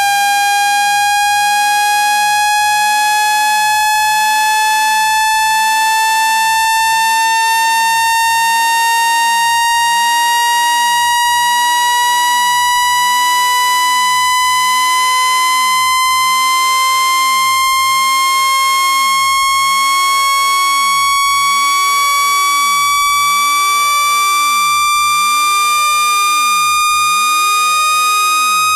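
Loud electronic test tone with a stack of buzzy overtones, gliding slowly upward in pitch: a speaker water-clearing tone sweep, played at full volume to vibrate trapped water out of a phone speaker.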